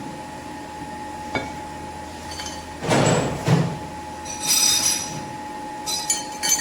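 Metal parts being handled and worked: a click, then a loud rasping scrape about three seconds in, followed by ringing metallic clinks, over a faint steady whine.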